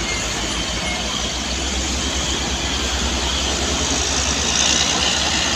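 Diesel engine of a large bus running steadily close by, a low rumble with a hiss that grows louder in the second half.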